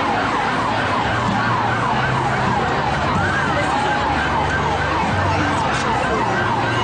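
A yelping siren, quick falling sweeps about three a second, over the steady noise of a large crowd.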